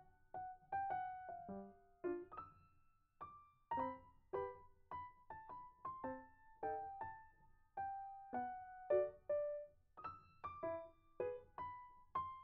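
Background music: a light piano tune played as a run of separate notes, each fading quickly.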